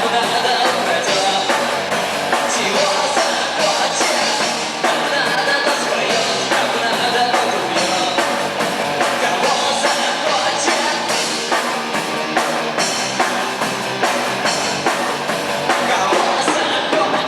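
Rock band playing live: drum kit with steady hits under dense guitar-band music, recorded thin in the bass.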